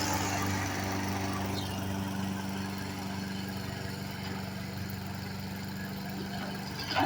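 An engine running steadily at an even speed, with a short knock near the end.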